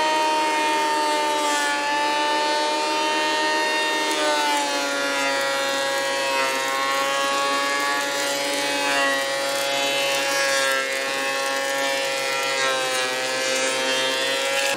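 Benchtop thickness planer running under load as Douglas fir boards are fed through: a steady high motor whine made of several tones, sagging slightly in pitch a few times as the cutterhead bites into the wood.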